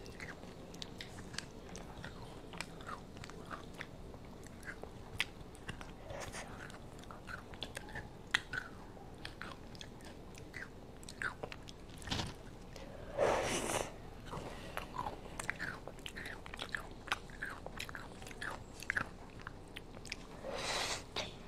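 Close-up sounds of a child biting and chewing a Pigcone ice-cream cone with a crunchy chocolate-crumb topping: small wet mouth clicks and crunches all the way through, with two louder, longer crunchy bursts, one about halfway and one near the end.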